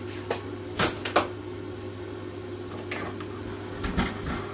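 Several hard knocks and clunks of small kitchen appliances being moved about on a worktop, the loudest a little over a second in, over a steady low hum.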